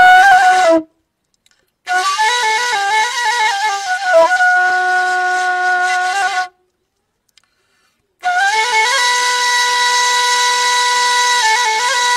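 Background music: a solo flute-like wind instrument playing a slow melody in three phrases, separated by pauses of one to two seconds. The last phrase holds long notes broken by short ornamented runs.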